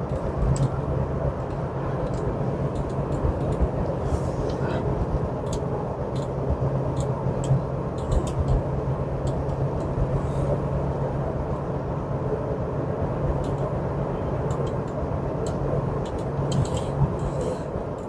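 Steady road and engine noise inside a moving car's cabin, with a low steady hum and a few faint ticks.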